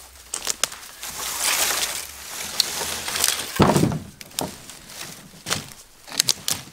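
Footsteps and rustling through dry brush and leaf litter as a dead birch pole is grabbed and dragged, with one heavy thump near the middle and sharp snaps and clicks of twigs after it.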